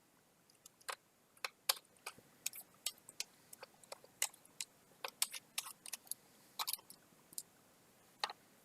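Irregular small clicks and taps of a screwdriver backing out the last screw holding a laptop's cooling fan, with light handling of the small metal and plastic parts.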